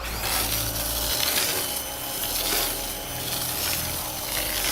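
CAT electric pressure washer spraying through a foam cannon: a loud, steady hiss of water and soap foam that starts suddenly as the trigger is pulled, with a low hum from the pump underneath.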